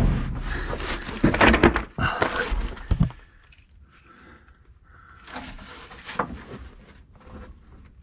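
Clunks and clattering of a drain pan being moved and set into place under a fuel tank, loud for about three seconds and then much quieter.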